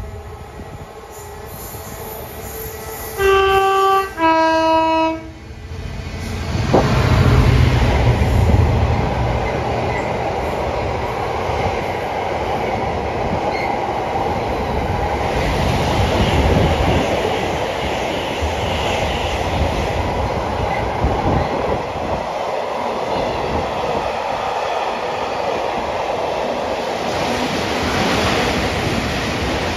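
Freight train sounding a two-tone horn, a short higher note then a lower one, about three seconds in. The train then passes close by: a heavy locomotive rumble, followed by a long run of car-carrier and empty flat wagons rattling and clattering over the rails.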